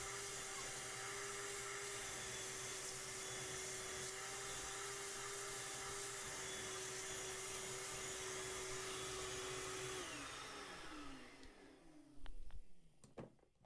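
Mini shop vac running steadily with a motor whine, then switched off about ten seconds in, its pitch falling as the motor spins down. A few sharp clicks follow near the end.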